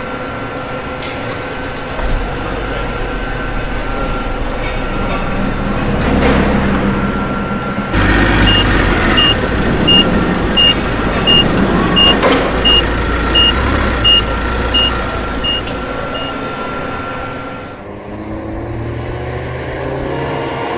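Vehicle engines running, as at a loading dock, with a reversing alarm beeping about a dozen times at an even pace, a little under once a second, in the middle.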